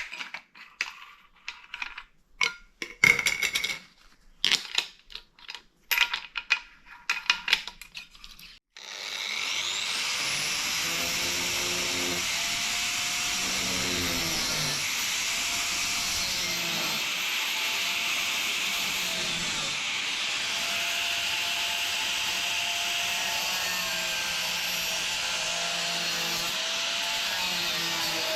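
A series of sharp knocks and clicks. About nine seconds in, an angle grinder spins up with a rising whine and then runs steadily, cutting the rusted sheet metal out of a car's rear body panel.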